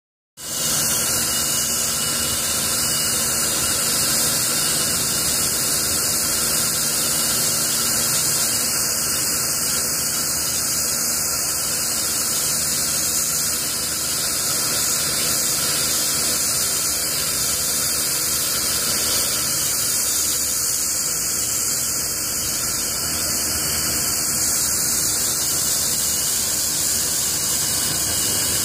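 Pressure washer jetting a concrete floor: a steady, loud high-pitched hiss of the water jet, with the even hum of the washer's motor and pump beneath, holding level throughout.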